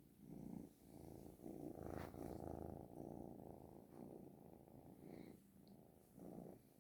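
A cat purring softly and continuously, the purr swelling and fading every second or two.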